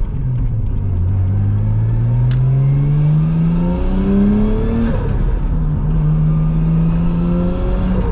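Nissan R33 Skyline GTS-t's turbocharged RB25DET straight-six, heard from inside the cabin, accelerating through the gears. The engine note climbs steadily for about five seconds, drops at an upshift, then pulls on at lower revs. With the new mild-steel X-Force exhaust and its centre muffler, the cabin has no drone and the turbo can be heard.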